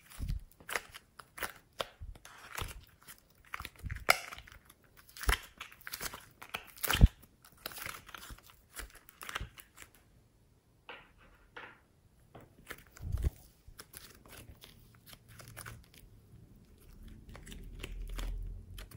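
Hands squeezing and folding soft clay, floam beads and slime together: irregular crackling clicks and pops, many at first and fewer after about halfway, with a low rumble of handling near the end.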